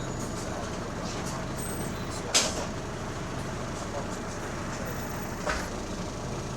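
Interior sound of a Wright Gemini 2 double-decker bus: the engine running steadily, an engine the uploader says has a rod knock. A sharp hiss-like clunk about two and a half seconds in, the loudest moment, and a smaller one about two seconds later.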